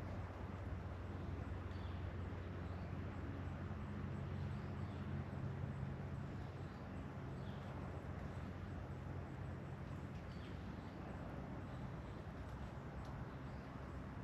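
Outdoor nature ambience: a steady low rumble under a soft hiss, with a bird's short, faint high chirps repeating every second or two.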